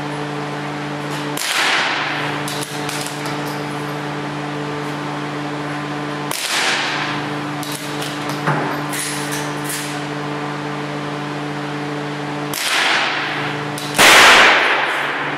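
Shots from a CZ 455 bolt-action .22LR rifle: four sharp reports a few seconds apart, each with a short fading echo, the last the loudest. Fainter clicks fall between them, all over a steady hum.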